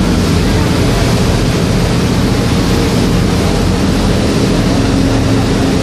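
Passenger boat under way: its engine runs with a steady low drone under a loud, even hiss of wind and water.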